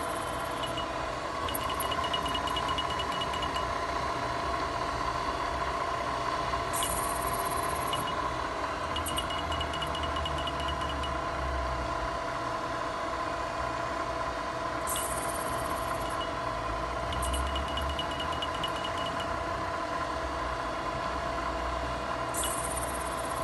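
A Bridgeport CNC milling machine running under power, with a steady hum. About every eight seconds there is a short burst of hiss followed by a rapid run of light clicks.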